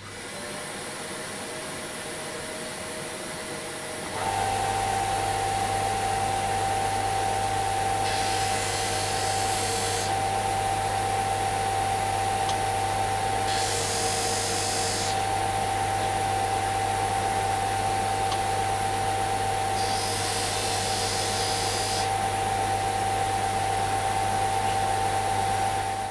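Bench belt-and-disc sander running with a steady motor hum, quieter for the first four seconds and then louder. Three times, for a second or two each, a walnut pen blank is pressed to the sanding disc with a rasping hiss, squaring its end down flush with the brass tube.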